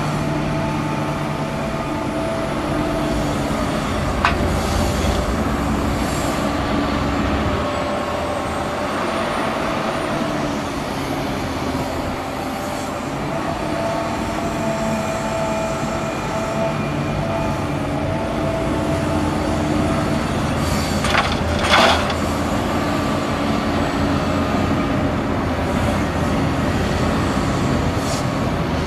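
Hitachi Zaxis 350 LCN crawler excavator working: its diesel engine runs steadily, with the pitch shifting a little under hydraulic load, as it digs soil and swings the bucket. A sharp click comes a few seconds in, and a brief loud clatter about two-thirds of the way through.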